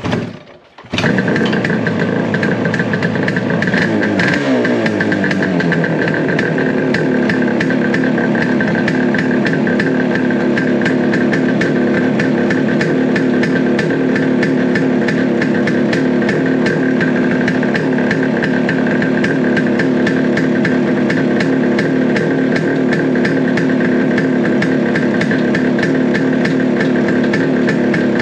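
1971 Suzuki T350's two-stroke twin engine comes in abruptly about a second in, its revs falling over the next few seconds and settling into a steady idle.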